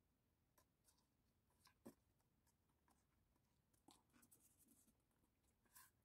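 Near silence with faint handling of a cardstock papercraft box: a few soft taps and rustles of card against fingers and the tabletop, the clearest about two seconds in.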